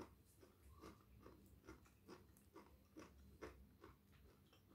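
Faint, close-miked chewing of a mouthful of rice and eggplant sambal: soft moist clicks, about two to three a second.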